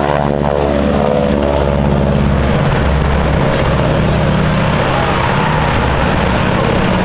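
Two propeller airplanes flying past low in formation, their engine drone falling in pitch over the first two or three seconds as they go by, then settling into a steady lower drone.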